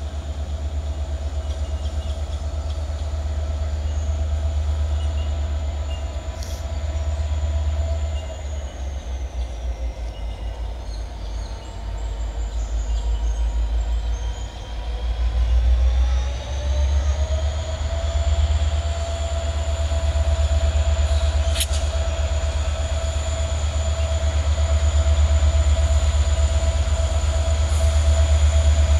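Diesel-electric locomotives of an approaching coal train, a deep pulsing engine rumble with a steady whine over it. The whine falls in pitch about a third of the way in and climbs back up a few seconds later as the engines ease off and load up again.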